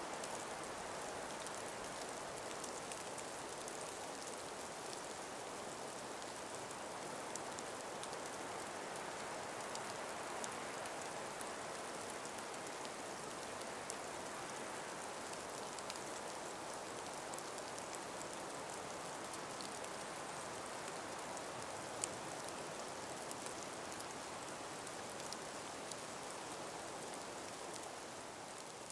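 Steady soft hiss of a calm breeze through ice- and snow-laden forest trees, with scattered faint ticks. It fades out near the end.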